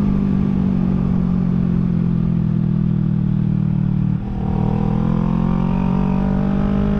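Kawasaki Ninja 650 parallel-twin motorcycle engine running steadily under way. It dips briefly about four seconds in, then comes back with its pitch slowly rising.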